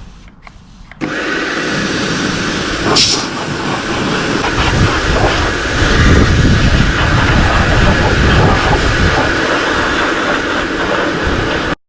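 Pressure washer spraying dirt and mud off a vehicle chassis: a loud, steady hiss of water spray. It starts suddenly about a second in and cuts off just before the end.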